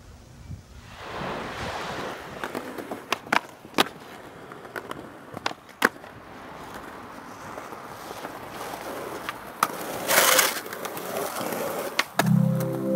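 Skateboard wheels rolling on concrete, with several sharp clacks of the board popping and landing and a brief scrape about ten seconds in. Music starts just before the end.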